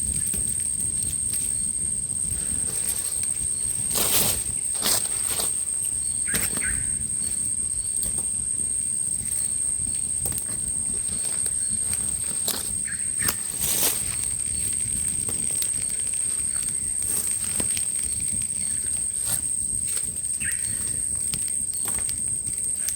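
Campfire crackling with scattered sharp pops, over a steady high-pitched drone of insects.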